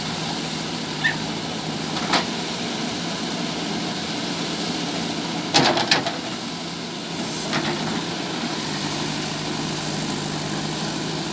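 JCB 3DX backhoe loader's diesel engine running steadily, with a sharp knock about two seconds in and a louder cluster of knocks a little past halfway as the machine works.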